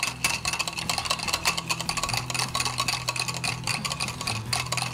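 Wire balloon whisk beating ghee and water in a ceramic bowl: a rapid run of clicks and scrapes as the wires hit the bowl, while the mixture is whipped into a fluffy, cream-like paste.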